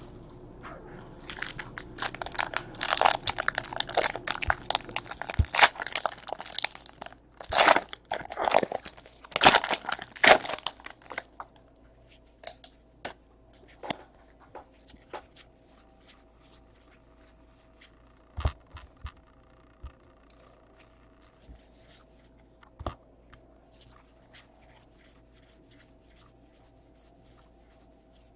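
Foil trading-card pack wrappers being torn open and crinkled, loud and dense for about the first ten seconds. After that come sparse, quiet ticks and rustles of the cards being handled and flipped through.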